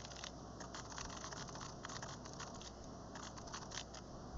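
Computer keyboard being typed on: a fast, irregular run of faint key clicks.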